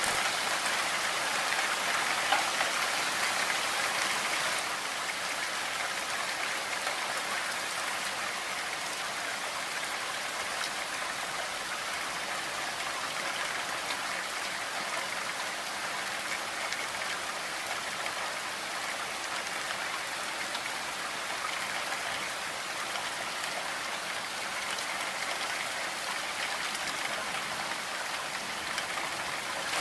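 Steady rain, an even hiss with no let-up. It is a little louder for the first four or five seconds, then settles.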